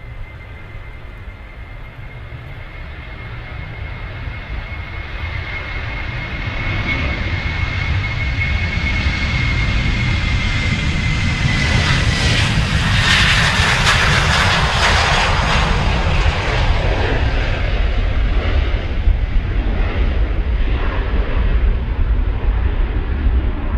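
Boeing 737-800's CFM56-7B turbofan jet engines at takeoff thrust, growing steadily louder. A high fan whine dips slightly in pitch as the jet passes, about twelve seconds in, when the noise is loudest, and a deep rumble carries on after it.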